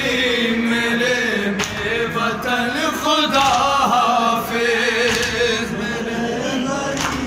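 A group of men chanting a noha, a Shia lament in Urdu, in unison into a microphone, sung without instruments.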